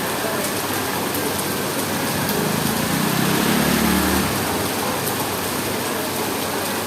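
Heavy rain falling as a steady hiss. A low rumble swells and fades about two and a half to four seconds in.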